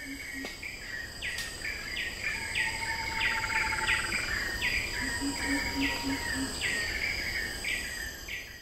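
Jungle ambience: a bird repeating a short falling call about three times every two seconds over a steady high insect drone, fading out at the end.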